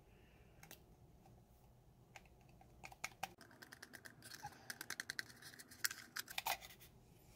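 Small paper packet of instant coffee crackling and being tapped as the powder is shaken out into a cup. A few light clicks, then a quick run of them from about three seconds in until near the end.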